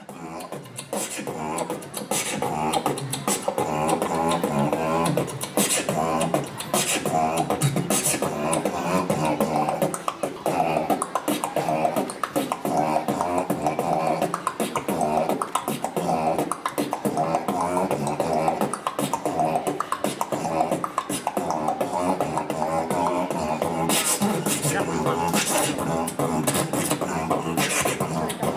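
A man beatboxing into a handheld microphone: a continuous stream of sharp, percussive mouth hits and clicks over a pitched vocal line.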